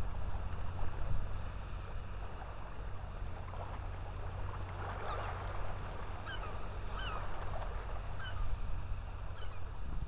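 Tidal-flat ambience: a steady low wind rumble on the microphone with a fine crackling and clicking. From about halfway, a bird gives several short, falling calls.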